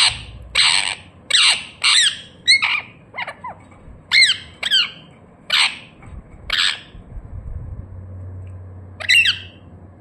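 Rose-ringed (Indian ringneck) parakeet squawking: a quick run of short calls, about one every half second, then a pause and one last squawk near the end.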